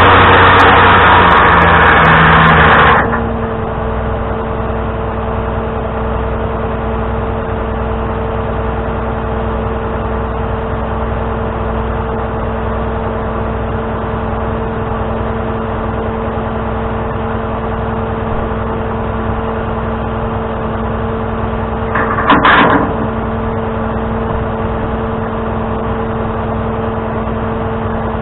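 Truck engine running: a louder noise stops about three seconds in, leaving a steady hum, with one brief knock about 22 seconds in.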